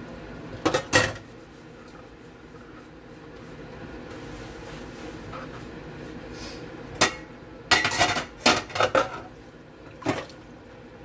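Dishes, pots and lids clattering against each other and the stainless steel sink while being washed by hand. There is a double clank about a second in, a run of clinks and knocks from about seven to nine seconds, and one more near the end.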